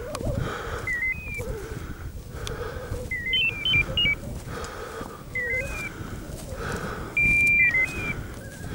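Electronic beeper collar on a running pointer, giving a short chirp of stepped pitches about every two seconds, one of them a longer held tone, over wind noise on the microphone.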